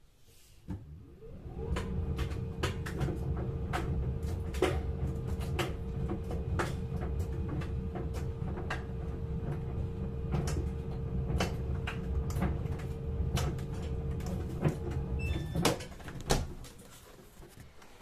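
A laundry machine's motor starts and turns the drum, building up over about a second. It then runs steadily with a low hum and a steady tone, scattered with many sharp clicks and knocks. It stops abruptly about fifteen seconds in, and a single knock follows a second later.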